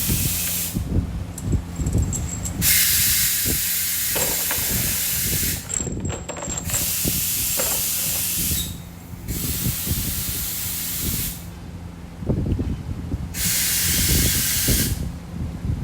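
A nozzle hisses in on-off bursts of about two to three seconds, five times, as when a workshop air or spray gun is triggered over engine parts. A low rumble and a steady hum run underneath.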